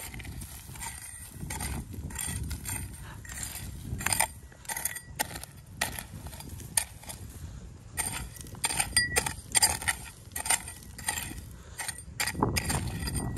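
Small metal hoe chopping into dry, gravelly soil: irregular strikes of the blade, with clinks of metal on pebbles and loose dirt scattering.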